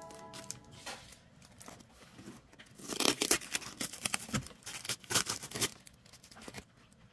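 Plastic courier wrap and its sticky tape crinkling and tearing as hands pull the package open, in scratchy bursts that are busiest from about three to six seconds in.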